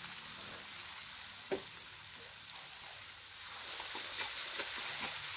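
Blended chili sauce sizzling in a hot wok. A single sharp click comes about a second and a half in, and from about four seconds in a metal spoon taps and scrapes the wok as the sauce is stirred.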